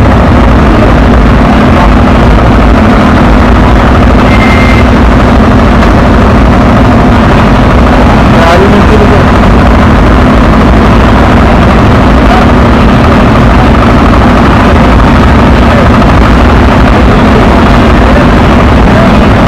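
Steady, overloaded din of heavy lorry engines running in slow procession traffic, mixed with crowd voices.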